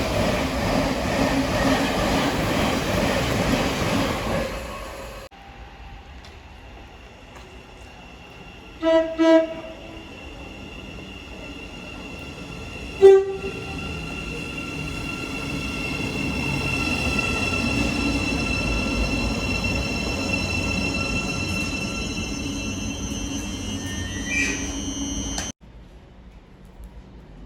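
Trains on a main line. A passing train's loud rumble cuts off about five seconds in. Two short horn toots follow near nine seconds and a single short horn blast about four seconds later, then a train approaches with a steady high whine and rumble that grow louder before cutting off near the end.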